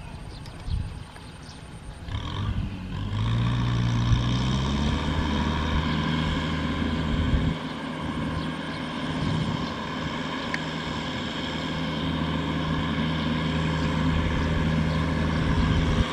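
Farm tractor's diesel engine revving up about two seconds in, then running steadily under load as it hauls a loaded trailer through mud.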